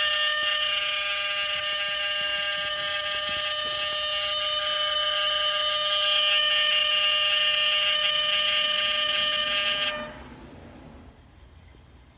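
3DR Solo drone's camera gimbal giving off a steady, high-pitched whine made of several held tones over a hiss, the strange noise of a misbehaving gimbal. It cuts off suddenly about ten seconds in.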